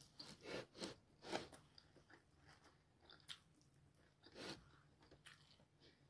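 A person chewing a mouthful of rice and lamb, faint and close to the microphone: a quick run of chewing sounds in the first second and a half, then a few single ones spaced a second or so apart.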